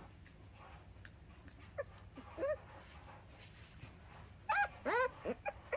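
Very young puggle puppy whining: a few faint short squeaks about two seconds in, then a quick run of about five loud, high-pitched cries that rise and fall, over the last second and a half.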